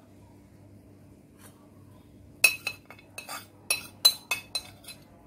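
A metal spoon clinking repeatedly against stainless-steel cookware: about ten sharp, ringing clinks in quick succession, starting about two and a half seconds in.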